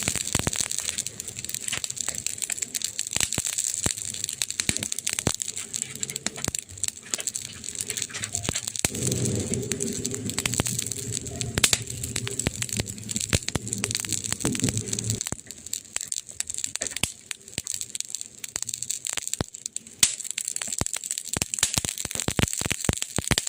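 Burning wood crackling and popping in irregular sharp snaps over a steady hiss. A low sound with several tones joins for about six seconds in the middle.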